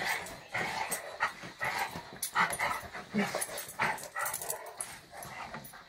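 Two dogs, a Labradoodle and a black-and-white dog, play-fighting, with short yips and barks coming in quick, irregular bursts.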